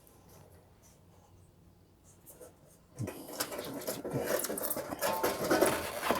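Parts of a PTAC wall unit being handled: after a near-silent stretch, rattling and scraping with small clicks and knocks starts about three seconds in and keeps going.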